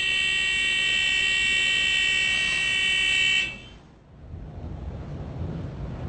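Ship's engine-order telegraph alarm giving a steady, high buzzing tone for about three and a half seconds, signalling a new engine order. It cuts off sharply and is followed by a low rumble.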